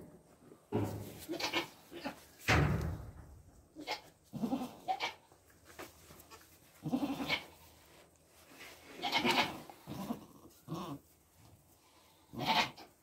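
Nigerian Dwarf goats bleating: about eight short calls, one every second or two.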